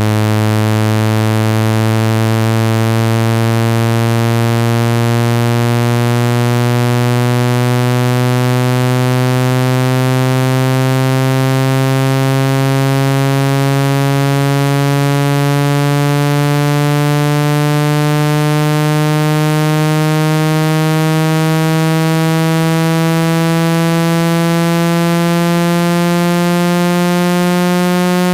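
Synthesized buzzing tone, rich in overtones, sliding slowly and steadily upward from a deep hum to a somewhat higher buzz: a speaker water-eject sound, played to shake water droplets out of a phone speaker.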